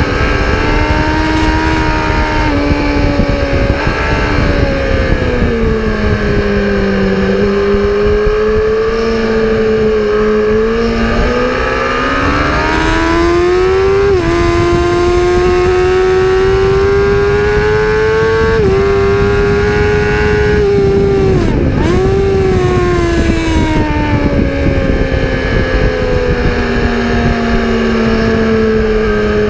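A vehicle engine at speed on a race circuit, its note rising and falling with the throttle and jumping at gear changes, with a brief sharp dip a little over 20 seconds in, over a constant rush of wind and road noise.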